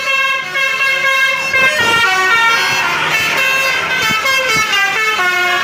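Bus 'telolet' horn: a multi-tone air horn playing a quick tune, its notes jumping up and down in pitch several times a second.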